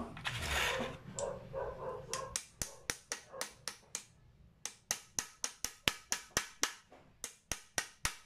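Hammer tapping a hydraulic floor jack's pump plunger, fitted with a new O-ring, down into its bore against trapped pressure: a run of sharp metal taps about four or five a second, starting about two seconds in, with a short pause midway.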